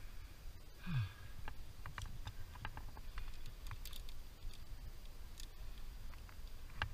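Scattered light clicks and taps of climbing hardware (carabiners, quickdraws, anchor chain) being handled at a bolted sport anchor, over a steady low rumble. A brief low falling sound about a second in is the loudest moment.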